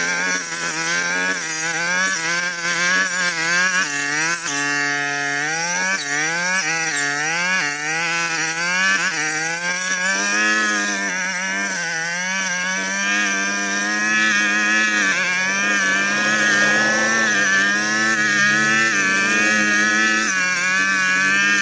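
Small petrol engine of a brush cutter running at high revs. Its pitch rises and falls again and again as it cuts through brush.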